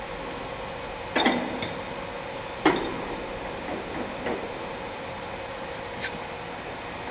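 Headstock gear-change levers on a 1993 Summit 20" x 80" gap bed engine lathe being shifted by hand, with the chuck rocked to mesh the gears: two sharp metal clunks a second and a half apart, then a few fainter clicks, over a steady hum.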